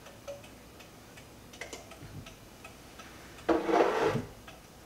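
Small beta Stirling engine, running on the heat of a mug of hot water, its flywheel and piston linkage ticking faintly as it turns. A man's voice makes a brief murmur about three and a half seconds in.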